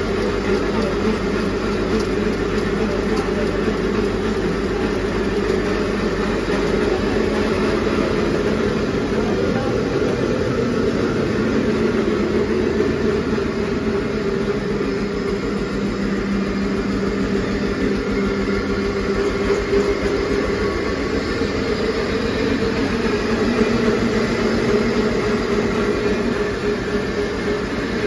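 Tractor-driven flour mill and oil expeller running steadily: a constant loud mechanical hum with a fast, even engine beat underneath.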